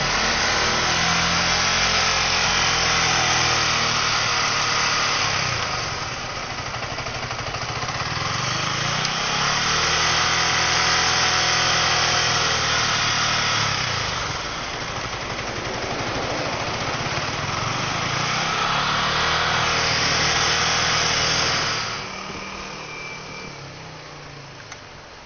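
Yamaha MT-15's single-cylinder engine, on its stock exhaust, revved up and held at high revs three times in a row, falling back between each, for a stationary exhaust-noise test. Near the end it drops back down to idle.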